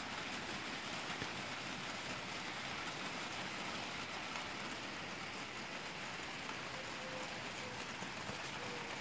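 Steady rain shower falling on garden trees and surfaces, an even patter without a break.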